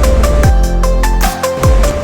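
Electronic dance music with heavy bass drops that slide down in pitch, a short synth melody and a steady beat.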